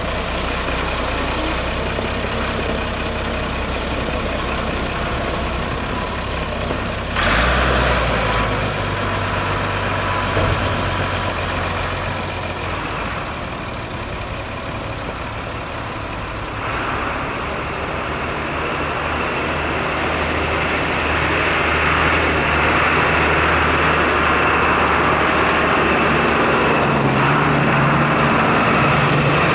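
Massey Ferguson 399 tractor's six-cylinder diesel engine running steadily, with a sudden louder burst about seven seconds in, growing louder through the second half.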